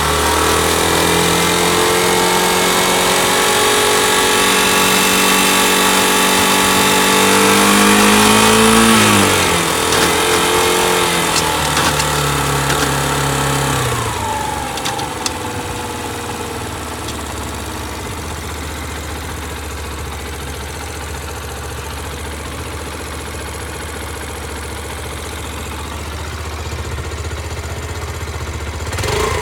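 Yamaha YBR125's air-cooled single-cylinder four-stroke engine running at raised revs, dropping back about nine seconds in, blipped once more, then settling into a steady idle. The engine has a slight abnormal noise from the cylinder head.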